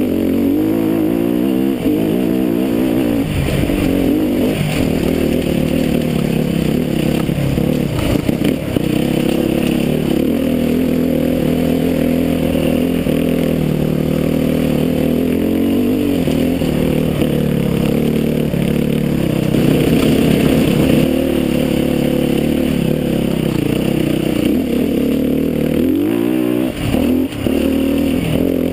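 Enduro dirt bike engine ridden along a trail, revving up and down again and again through the throttle and gears, heard from the rider's helmet camera. Near the end the revs drop off briefly and then pick up again.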